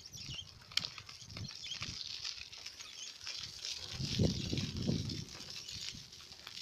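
Wind buffeting the phone's microphone on a moving bicycle, in uneven rumbling gusts, strongest about four seconds in, over a steady hiss with small rattles and ticks from the ride; a sharp click just under a second in.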